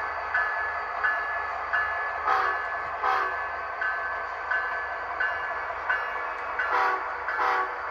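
Model train sound effects: a locomotive bell ringing steadily, about three strokes every two seconds, with two pairs of short horn blasts, one pair a little over two seconds in and one near the end.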